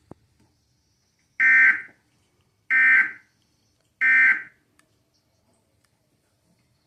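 Emergency Alert System end-of-message signal: three short, identical bursts of SAME digital data tones, evenly spaced about a second apart, marking the end of the weather alert.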